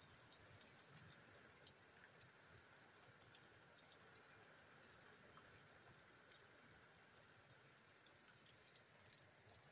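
Faint steady rain in hurricane weather, with irregular drips falling off a porch roof edge and ticking every fraction of a second.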